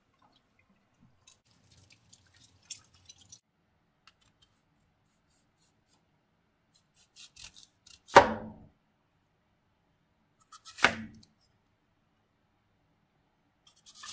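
Chef's knife cutting a Honeycrisp apple on a plastic cutting board: three sharp cuts a few seconds apart, each ending as the blade knocks on the board.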